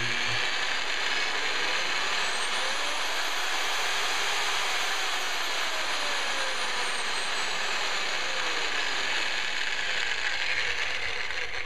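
Northern Tool double-auger electric mortar mixer running unloaded in its low gear, with no augers fitted: a steady brushed-motor whir. Its whine rises in pitch over a couple of seconds as the motor speeds up, then slowly falls back as it slows down.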